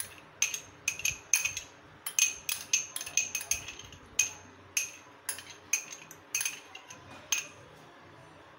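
Metal spoon scraping and tapping against glass bowls while scooping out milk cream: a run of short, sharp clinks, several a second, that stops about a second before the end.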